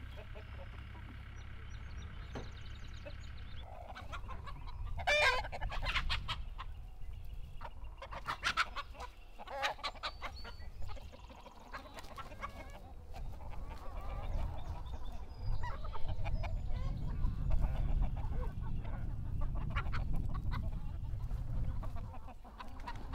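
Flock of hens clucking and squawking, with sharp loud calls about five seconds in and scattered clucks after. A steady whine runs for the first few seconds, and a low rumble of wind on the microphone sits underneath.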